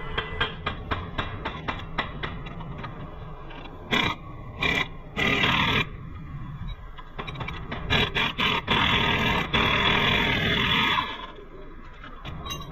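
Workshop tool noise on a Jeep's suspension bolts. It starts with a run of regular sharp clicks, then comes three short loud bursts of a power tool about four to six seconds in, and a longer run of about three seconds later on.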